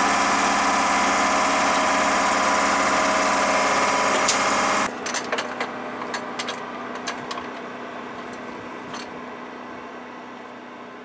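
A steady machine drone with several steady tones, which cuts off abruptly about five seconds in. After that there is a quieter steady hum with a scatter of sharp metallic clicks and taps as hands work a tool on the aircraft, fading out near the end.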